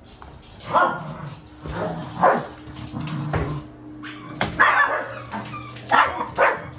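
A small senior Maltese barking in short, sharp barks, about five or six spread a second or so apart: warning barks at someone creeping up on her owner.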